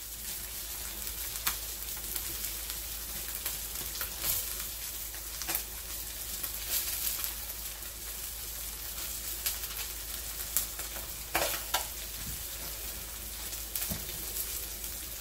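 Striped bass fillets frying skin-side down in oil in a nonstick frying pan: a steady sizzling hiss with scattered sharp pops.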